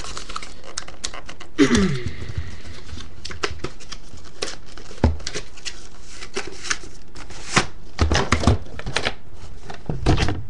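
A tight cardboard retail box being worked open by hand: scattered clicks, scrapes and rustles of cardboard and packaging, with a short falling squeak about two seconds in, over a steady hiss.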